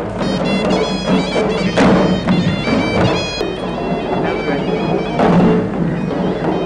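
Traditional procession music: a shrill, reedy pipe plays a melody over a steady drone, with a few drum strikes.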